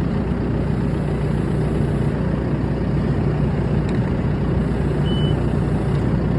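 Excavator's diesel engine running steadily, with one short high-pitched beep about five seconds in.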